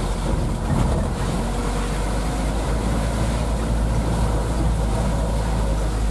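Isuzu Elf's diesel engine running steadily under way, with road noise, heard from inside the cab as a constant low drone.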